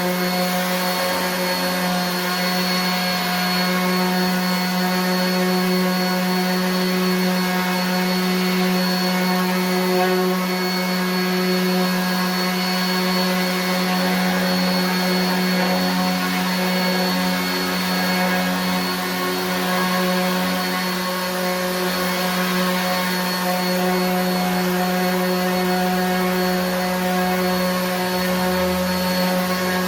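RIDGID 18-volt cordless 5-inch random orbit sander running steadily, sanding a wooden board: a constant motor hum with the hiss of sandpaper on wood.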